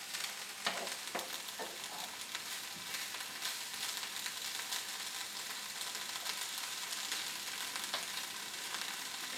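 Diced onion and bell pepper sautéing in olive oil over medium-high heat: a steady sizzle in a frying pan, stirred with a wooden spatula that scrapes and knocks lightly against the pan a few times.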